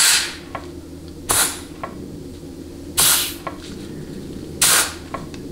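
Compressed-air blow gun with a vacuum-hose tip fired in four short hissing blasts into the fourth-gear band apply passage of a 700R4 transmission case: a case air check of the band servo. A faint click follows each blast.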